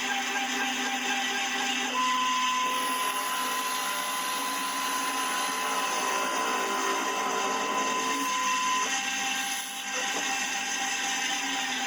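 Homemade CNC lathe running: a steady motor noise with the whine of its stepper-motor feeds. The whine changes pitch about two seconds in, when a high tone comes in, and again near nine seconds, when that tone stops.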